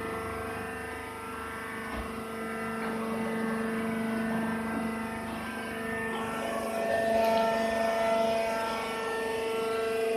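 Rice husk baling press running: a steady mechanical drone with several humming tones over it, a little louder from about seven seconds in.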